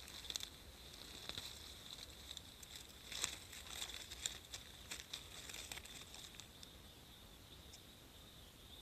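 Dry leaf litter crackling and rustling as a mushroom is pulled up by hand from the forest floor, with a few sharp crackles around three and four seconds in. A faint, steady high-pitched drone runs underneath.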